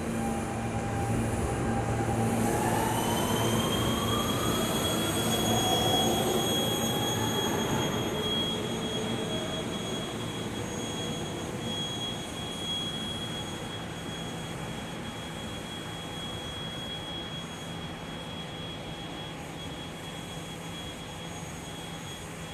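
New York City subway train pulling out and speeding up, its motors giving a rising whine that grows louder for the first several seconds, then fades away. A thin, high, steady squeal begins a few seconds in and lingers as the rest dies down.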